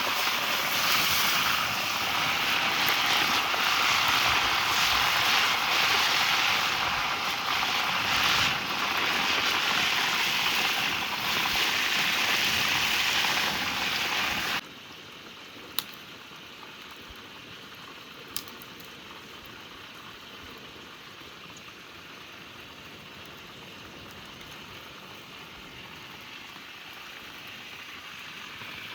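Fish frying in hot oil, with a steady loud sizzle. About halfway through it drops suddenly to a much quieter sizzle, and two sharp pops follow.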